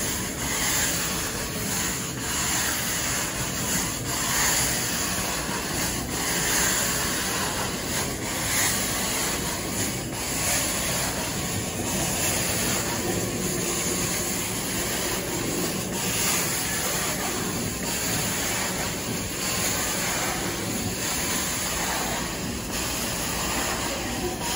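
Carpet extraction wand spraying cleaning solution and drawing it back up under strong vacuum suction: a loud, steady hiss that swells and dips slightly about every two seconds.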